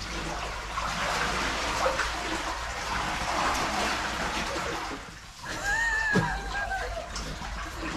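River water rushing and splashing around a kayak as it is paddled against a fast current. A little past halfway there is a short wordless shout.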